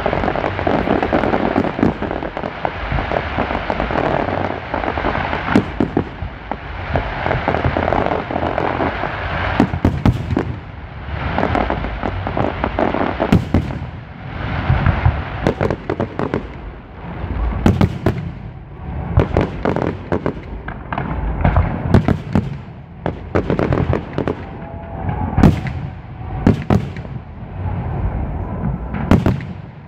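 Aerial fireworks shells bursting in quick succession at a large display: many sharp bangs with a continuous din between them, with no pause.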